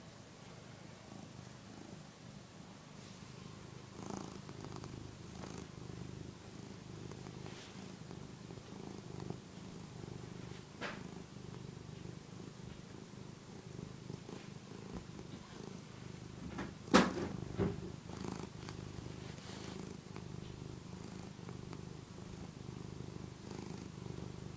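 Tabby cat purring steadily and continuously as it suckles on a soft fleece housecoat. A sharp loud click about seventeen seconds in, with a smaller one just after, stands out above the purr.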